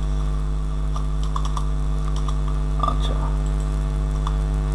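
Computer keyboard keys tapped in a few scattered clicks during code editing, over a steady low electrical hum.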